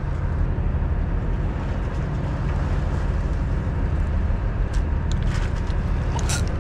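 Boat's engine running steadily under way: a low drone with a rushing hiss over it, and a few sharp clicks near the end.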